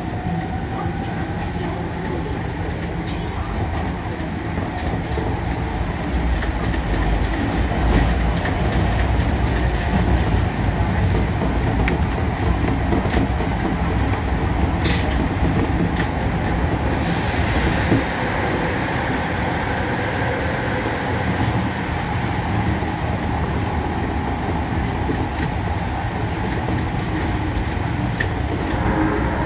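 Osaka Metro Sakaisuji Line subway train running through a tunnel, heard from inside the front car: a steady rumble of wheels on rail with scattered clicks, somewhat louder in the middle stretch.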